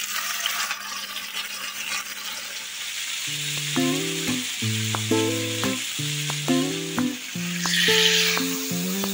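Marinated meat sizzling in hot oil in a ridged grill pan. The sizzle starts suddenly as the meat goes into the pan, and flares louder near the end as the meat is turned with a spatula. Background music with a bass line comes in about three seconds in.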